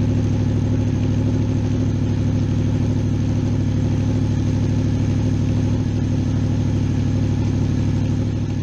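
2003 Honda VFR's V4 engine idling steadily in first gear, turning the raised rear wheel and drive chain.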